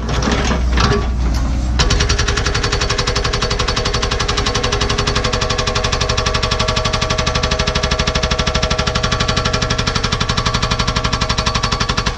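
Hydraulic breaker hammer on a Cat 314E excavator pounding hard bedrock in a rapid, even train of blows over the excavator's diesel engine drone. The steady hammering starts about two seconds in, after a stretch of irregular knocking.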